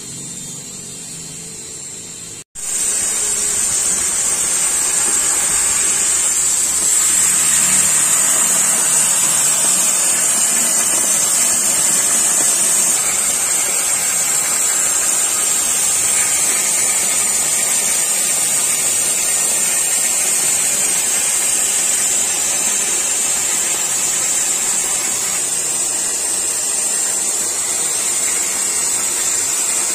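Oxy-fuel cutting torch on a CNC flame-cutting machine hissing steadily as it cuts thick steel plate. A quieter stretch with a low hum breaks off about two and a half seconds in, and a louder, high-pitched hiss carries on from there.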